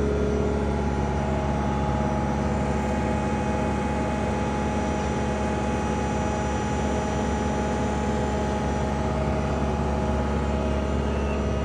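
An engine running steadily at an even speed: a constant low hum with several steady tones above it.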